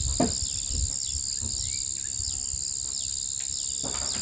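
Insects shrilling continuously: one steady high-pitched drone with a second rapidly pulsing chirp just below it, plus a few short falling calls.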